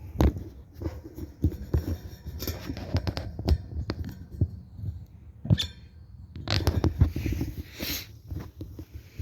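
Irregular footsteps and handling thumps from a handheld camera, with sharp clicks and a stretch of rustling about two-thirds of the way through.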